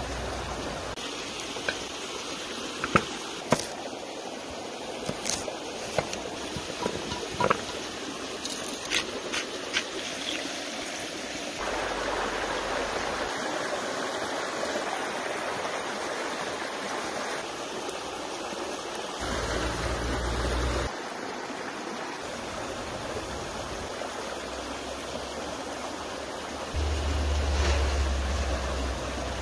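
Mountain stream running over rocks, a steady rush of water that jumps in level and tone several times. In the first ten seconds a few short, sharp knocks and clicks stand out above the water.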